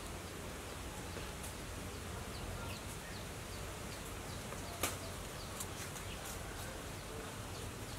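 Rural outdoor ambience: a steady background of insect buzzing with faint high chirps scattered through it, and a single sharp click about five seconds in.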